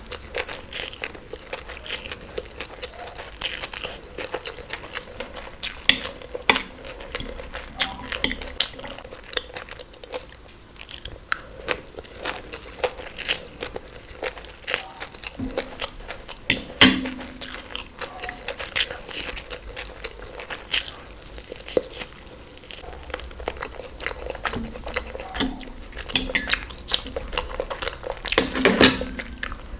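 Close-miked eating: steady chewing and biting with frequent sharp crunches at irregular intervals, a few louder ones about halfway through and near the end.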